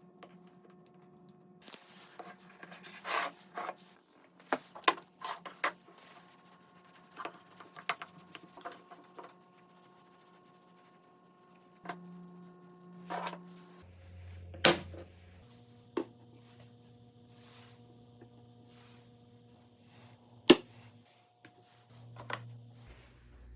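Wooden pieces handled by hand: scattered light knocks, taps and short rubbing scrapes of wood on wood, with a sharp knock about 20 seconds in, over a steady low hum.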